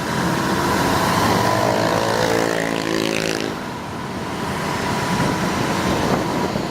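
Wind buffeting the microphone on a moving motorcycle taxi, with road traffic noise. From about a second and a half in, an engine note slowly falls in pitch for a couple of seconds, then fades back into the traffic.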